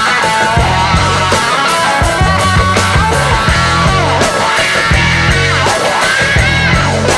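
Background rock music with electric guitar, a steady beat and a singing voice.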